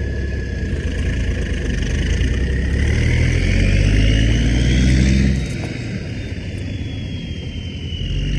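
Caterpillar D6 bulldozer's diesel engine running under load, swelling and then easing off about five seconds in. A high whine climbs steadily and then slowly falls away.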